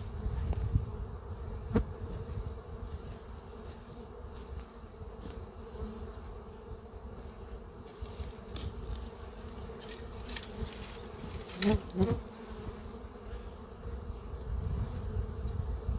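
Honey bees buzzing around a newly installed hive during orientation flights, a steady hum. About three-quarters of the way through, a louder buzz wavers in pitch and fades as a bee flies close past the microphone.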